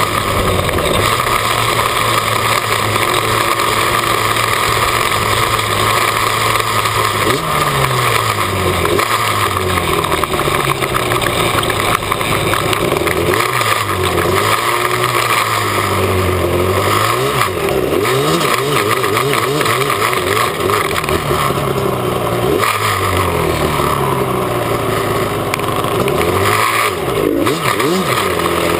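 Modified Yamaha Banshee twin-cylinder two-stroke quad engine heard from on board while riding, with a loud steady rush underneath. From about seven seconds in, the engine pitch rises and falls again and again with throttle and gear changes.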